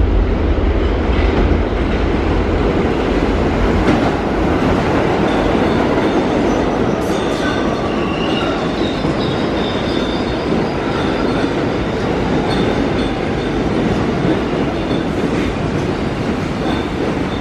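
R62A subway train rolling into an underground station, with a heavy, steady rumble of wheels on rail and clacking over the rail joints. High thin squeals come in through the middle as it slows.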